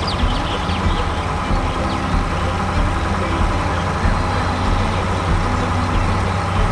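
A vehicle engine idling steadily with an even, low hum.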